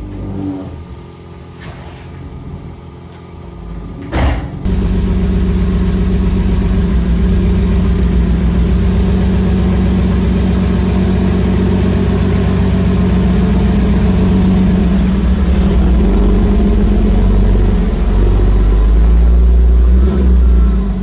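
Porsche Boxster's flat-six engine cranked and starting about four seconds in, then running steadily at idle. It grows louder in the last few seconds as the car pulls away.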